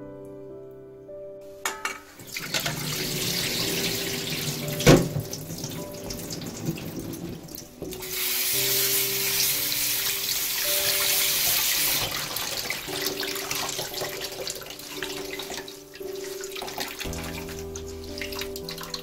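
Kitchen tap running into a stainless steel colander in a sink while hands rinse and rub soaked seaweed, the flow strongest in the middle, with light piano music throughout. One sharp knock comes about five seconds in.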